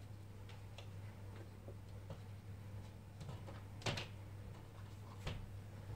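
Faint, scattered light taps and rustles of a kitten pawing at a fabric bag strap on a wooden floor, with sharper clicks about four seconds in and just after five seconds, over a steady low hum.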